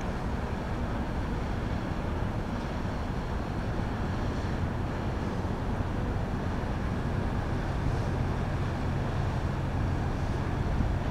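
Steady low drone of a passing inland tanker barge's diesel engine, growing slightly stronger in the second half, over a haze of distant road traffic.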